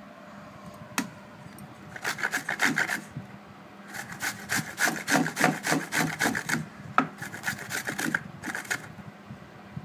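Raw mango being grated on a hand grater: quick rasping strokes, several a second, in three runs with short pauses between, and a single sharp click about a second in.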